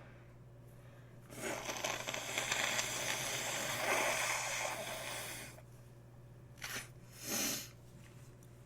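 A person with a congested nose letting out a long, noisy rush of breath for about four seconds, then two short breaths.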